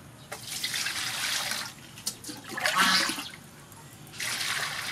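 Water poured from a metal bowl into an aluminium cooking pot, splashing onto the pot's bottom in three separate pours of about a second each.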